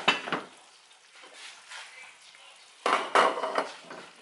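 A metal saucepan and cookware clattering and scraping on a gas stovetop, in two bursts: a short one at the start and a longer one about three seconds in.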